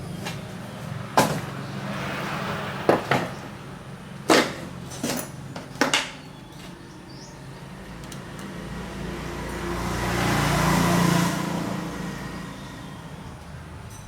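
Several sharp knocks or clacks, about six in the first six seconds, then a rushing noise that swells and fades away.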